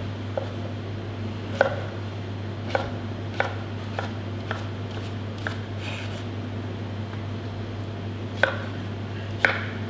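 Chef's knife cutting cucumber on a plastic cutting board: uneven single taps of the blade meeting the board, about ten in all. A steady low hum runs underneath.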